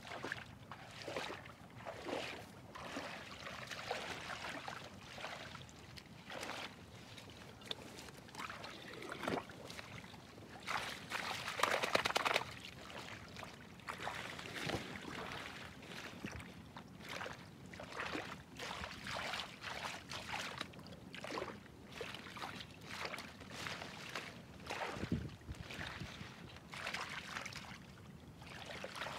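Shallow muddy water splashing and sloshing irregularly as someone wades through it and gropes by hand among dense water plants. The loudest splashing comes a little before halfway.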